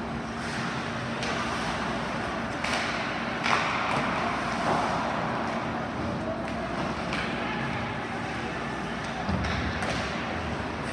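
Ice hockey rink noise during play: a steady din of voices and a low hum, broken by several sharp knocks of stick, puck and boards, the loudest about three and a half seconds in, with a duller thud near the end.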